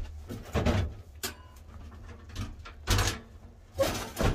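Metal knocks and scrapes as a Winnerwell Nomad View steel wood stove and its chimney pipe are shifted into place by hand. There are several separate clunks, the loudest about three seconds in and just before the end.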